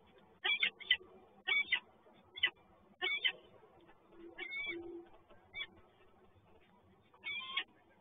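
Peregrine falcon calling: short, pitched calls, several in quick succession in the first two seconds, then fewer and further apart, with one last call near the end.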